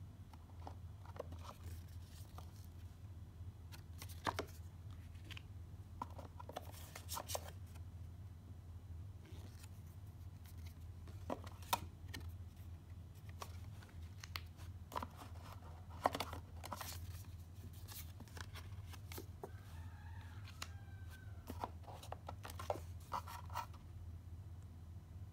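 Cardboard packaging and paper inserts being handled during an unboxing: scattered rustles, slides and light taps of box and paper, over a steady low hum.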